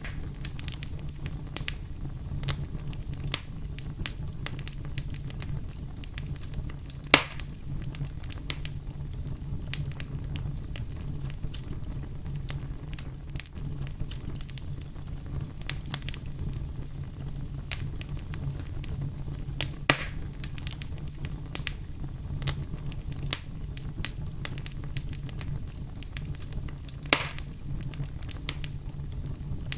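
Campfire burning with a steady low rumble and constant small crackles, with three louder sharp pops about 7, 20 and 27 seconds in.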